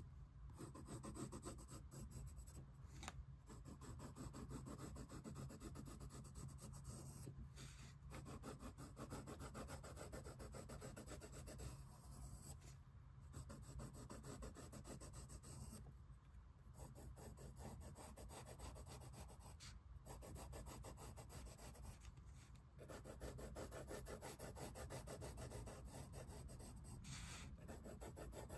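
Colored pencil shading on sketchbook paper: faint, fast back-and-forth scratching strokes, with short pauses every few seconds.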